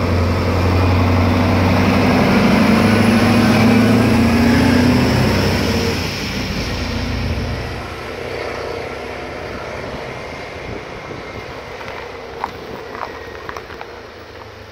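Scania 143's V8 diesel engine running under an 82-tonne load, loudest in the first few seconds as the truck passes close by, then fading steadily as it drives away. A few faint clicks come near the end.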